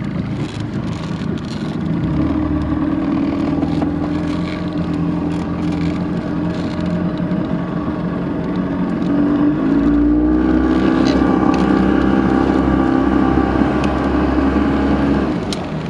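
Boat's outboard motor running with the boat under way. It picks up about two seconds in, rises in pitch again near the ten-second mark, and eases off just before the end.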